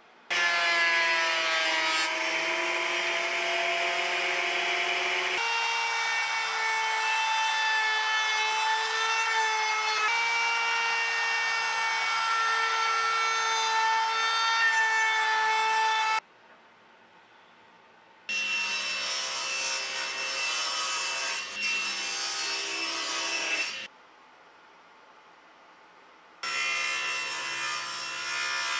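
Power woodworking tools cutting hardwood in short edited clips. A router table runs with a steady whine while routing a padauk board for the tray handles, then a SawStop table saw cuts a groove. The machine noise comes in three stretches: the first about sixteen seconds long, then two shorter ones, each cut off abruptly by a brief silence.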